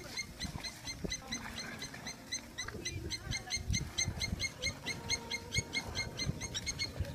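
A high chirping call repeated rapidly and evenly, about five or six chirps a second, stopping near the end, over scattered low animal sounds.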